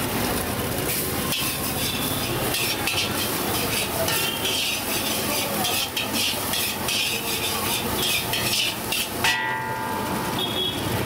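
Egg, rice and vegetables sizzling in a hot wok, stirred with a spatula that scrapes and clatters against the pan.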